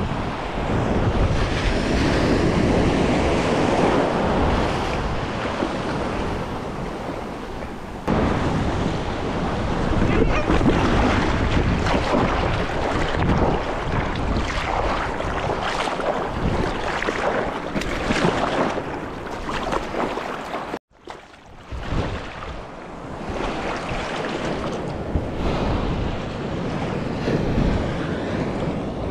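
Seawater splashing and rushing around a surfboard as it is paddled through choppy surf, heard close to the water, with wind buffeting the microphone. The sound cuts out for a moment about two-thirds of the way through.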